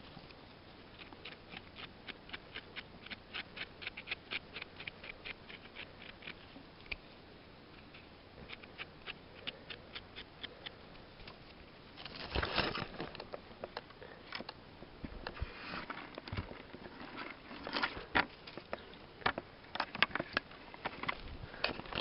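Knife blade scraping soil off the stem of a freshly picked porcini mushroom in short, quick strokes, about three or four a second. About halfway through these give way to louder, irregular rustling and snapping.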